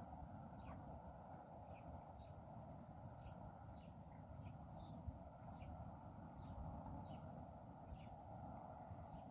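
Faint bird calls: short, high chirps repeated irregularly, one or two a second, over a faint steady background noise.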